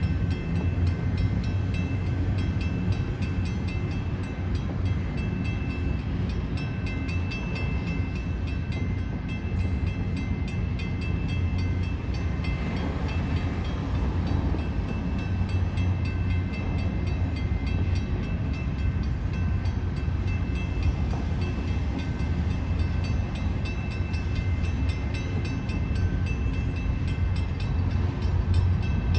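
A train rolling steadily past: a continuous low rumble of wheels on rails, with thin high-pitched tones that come and go above it.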